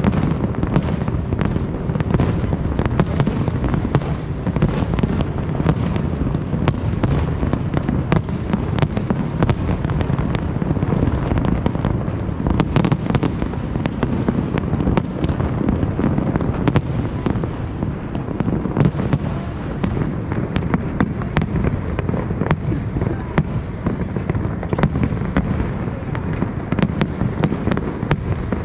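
Aerial fireworks going off in a continuous barrage: many sharp cracks and bangs, one after another, over a steady low rumble of bursts.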